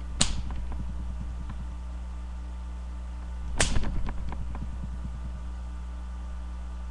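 Two sharp knocks or cracks about three and a half seconds apart, each trailed by a quick, fading run of fainter clicks, over a steady low hum.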